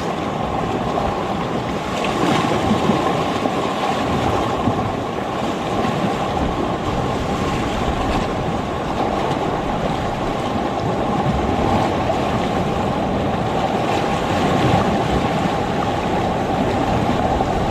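Steady noise of ocean surf and wind, with some wind buffeting on the microphone.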